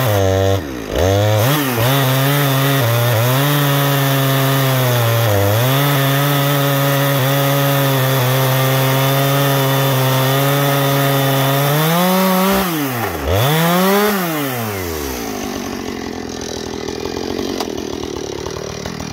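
Husqvarna 460 Rancher two-stroke chainsaw on an Alaskan chainsaw mill ripping lengthwise through a cedar log under load, its engine speed steady with a few brief dips. About twelve seconds in the revs climb and dip twice as the cut finishes, then fall away to a lower, rougher running.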